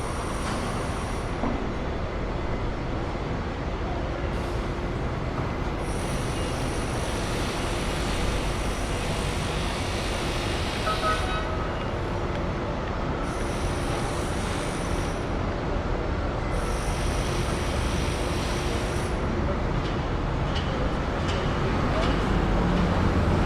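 Street ambience: a steady rumble of traffic and rail vehicles with indistinct voices in the background, growing a little louder near the end.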